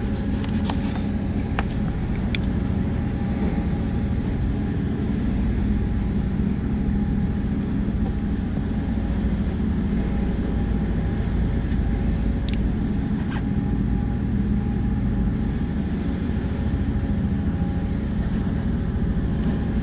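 A boat's engine running steadily, a low rumbling drone with a few constant tones, with a few faint clicks.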